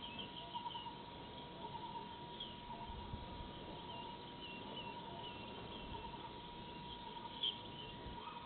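Outdoor ambience through a surveillance camera's microphone: many short, high chirps from small animals over a faint hiss, with a steady thin tone underneath and one sharper, louder chirp about seven and a half seconds in.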